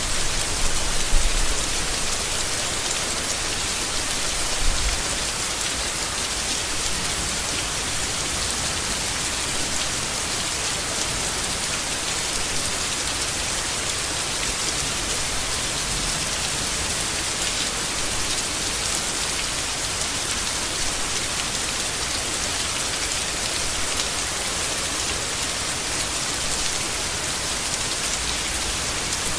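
Steady heavy rain pattering on leaves, a dense even hiss, with a couple of brief low bumps in the first few seconds.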